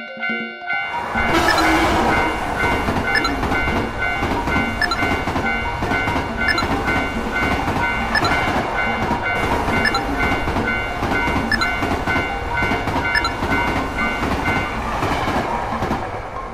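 Electric commuter train passing over a level crossing: a steady rumble with a regular clickety-clack of wheels over the rail joints. It starts about a second in and fades out near the end, with the crossing's warning bell ringing over it.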